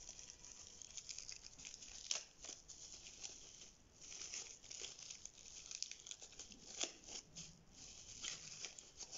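Plastic packaging pouch crinkling and rustling as it is handled and pulled open, with irregular faint crackles and small tearing sounds.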